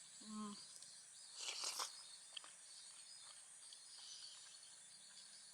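Faint outdoor ambience: a steady high insect chirring, with a short hummed voice sound near the start and a brief noisy rustle about one and a half seconds in.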